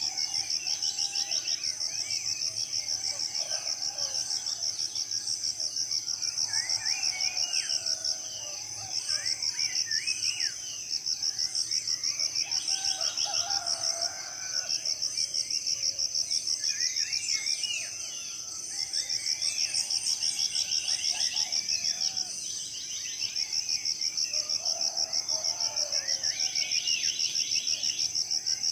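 Tropical forest morning chorus, dominated by an insect's high, rapidly pulsing trill that runs in long stretches with short breaks every few seconds. Several birds call underneath with varied whistles and notes that sweep up and down in pitch.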